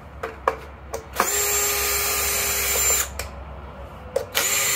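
Cordless drill-driver with a 4 mm hex bit backing out deck screws: a few clicks as the bit is seated, then the motor runs steadily for about two seconds, stops, and starts again near the end on the next screw.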